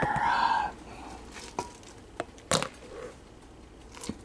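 A drawn-out voiced sound that ends about 0.7 s in, followed by a few sharp clicks and taps, the loudest about two and a half seconds in.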